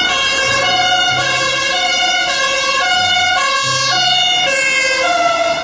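German fire engine's two-tone siren (Martinshorn) sounding on a call, alternating between a high and a low note about every half second.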